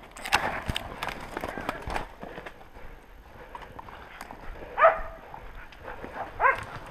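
Hunting dogs barking at a wild boar they are holding at bay, with two loud barks about five and six and a half seconds in. Before them, a quick run of sharp cracks and crunches from footsteps and snapping twigs as the hunter pushes through snowy undergrowth.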